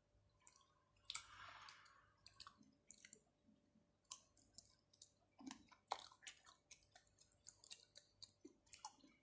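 Someone chewing raw shrimp and octopus: a run of sticky, wet mouth clicks and smacks, with a longer noisy burst about a second in.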